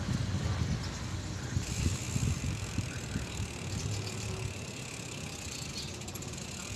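Wind buffeting the microphone and tyres rolling on a concrete road as a two-wheeler rides along. A steady high hiss joins in about a second and a half in.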